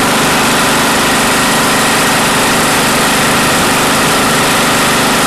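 A small engine running steadily at one constant speed, a loud continuous drone that does not change.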